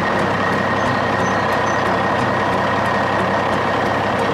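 Steady truck engine sound running evenly, with a thin high whine held throughout.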